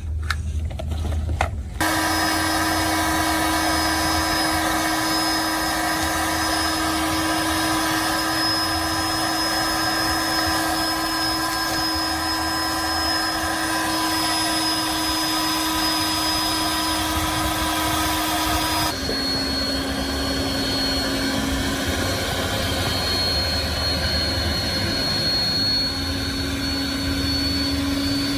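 A small high-speed electric motor with a fan, running steadily with a high whine. It starts about two seconds in and drops to a slightly lower pitch a little past halfway.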